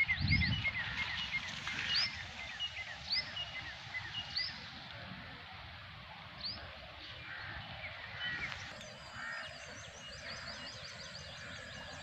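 Wild birds chirping and calling over a steady outdoor hiss, with a short rising whistle every second or so through the first half. From about two-thirds of the way in, quick high chirps come thick and fast.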